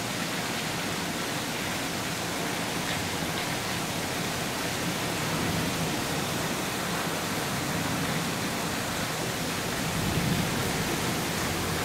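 Torrential rain pouring down steadily, a dense even hiss.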